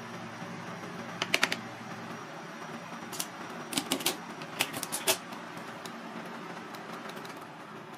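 Cleaver chopping through a cooked crab's shell on a plastic cutting board: sharp knocks and cracks in quick clusters, three or four about a second in and several more from about three to five seconds in. A steady low hum runs underneath.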